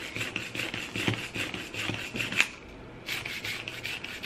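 Plastic push-down whisk being pumped by hand, its spiral shaft rasping in quick repeated strokes as the whisk head spins; the strokes pause briefly about two and a half seconds in, then start again.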